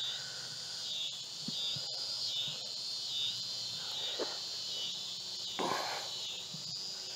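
A chorus of insects singing high-pitched and pulsing steadily, with a few soft brushing thumps underneath.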